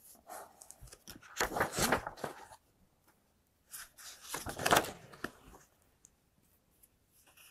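Pages of a large hardcover picture book being opened and turned: two spells of paper rustling, one about a second in and another around four to five seconds in.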